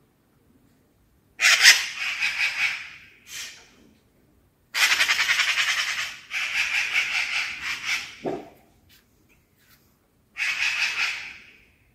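A magpie giving its harsh, rapid rattling chatter, the warning call. It comes in several bursts separated by short silent pauses.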